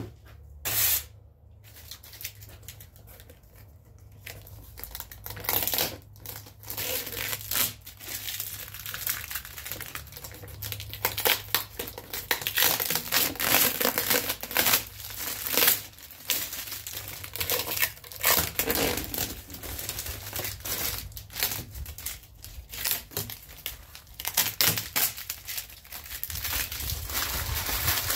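Clear plastic wrap and tape crinkling and tearing as they are peeled off a cardboard patch taped over a cracked door glass pane, with irregular rustling and crackling. It is fainter for the first few seconds and busier from about five seconds in.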